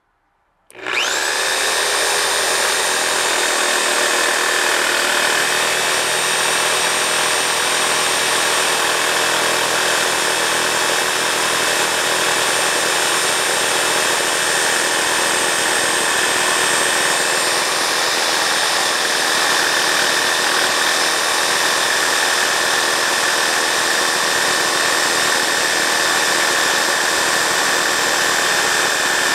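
Harbor Freight Hercules corded reciprocating saw starting up about a second in with a quick rising whine of its brushed motor, then running steadily under load as its blade cuts through a 1-1/4 inch cold-rolled steel bar: a loud, continuous sawing of the blade on steel over a high motor whine.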